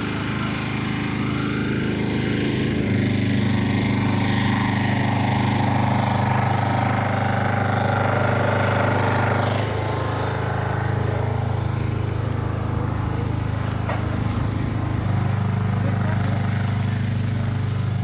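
An engine running steadily with a low hum that steps up about three seconds in, drops back near ten seconds and rises again about fifteen seconds in.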